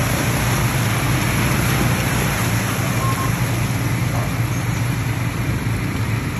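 ATV engine running at a steady pace under a loud, even rush of wind and riding noise.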